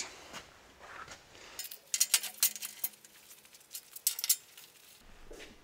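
A quick run of light metallic clicks and clinks from a red-handled locking clamp being fitted and tightened onto the floor jack's front wheel against a steel welding table.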